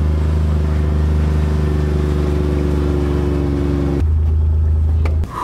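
Vehicle engine running steadily, heard from inside the cab. The sound changes abruptly about four seconds in and cuts off shortly before the end.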